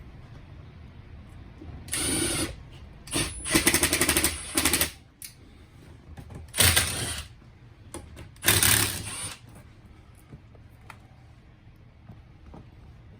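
Power driver fastening the screws or bolts of a sneeze guard mounting, run in four short bursts with a rapid hammering pulse.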